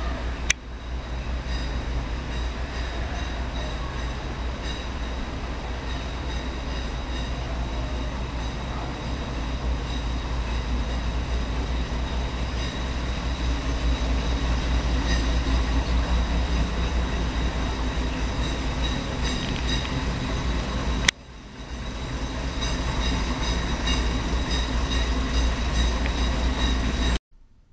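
Diesel railcar of the Chemins de Fer de Provence idling at the platform: a steady low rumble with a faint high whine over it. A sharp click about half a second in, and another about 21 seconds in with a brief dip, mark cuts in the recording, and the sound stops abruptly near the end.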